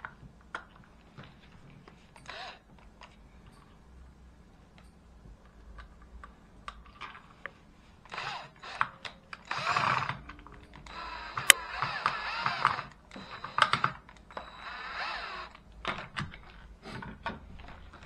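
Cordless drill running in a few short spurts on a screw in a plastic electrical switch box, among light clicks and rattles of the box and cable being handled.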